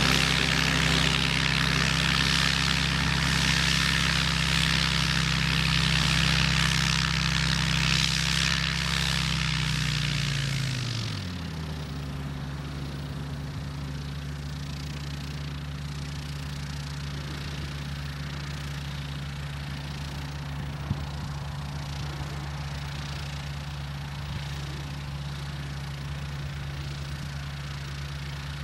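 HK36 Super Dimona motor glider's engine and propeller running steadily at higher power, then throttled back about ten seconds in, the pitch gliding down to a lower, quieter idle that holds steady.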